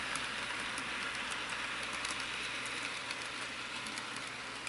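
HO-scale Walthers Trainline Santa Fe diesel locomotive pulling its freight cars around a plastic track oval: a steady whirring hiss of the small motor and wheels on the rails, with faint scattered clicks.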